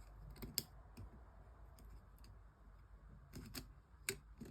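Faint, scattered clicks and taps of small tools and plastic parts as covers are taken off the inside of a Nokia 2730 phone, with a couple of sharper clicks near the end.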